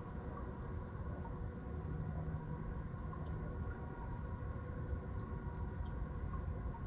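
Steady low rumble of distant city traffic under a faint steady hum, with a few faint short chirps scattered through it.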